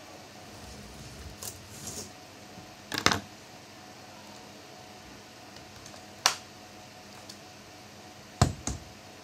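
Scattered sharp clicks and knocks of laptop parts and tools being handled during disassembly: a loud double knock about three seconds in, a single sharp click around six seconds, and a quick cluster of knocks near the end.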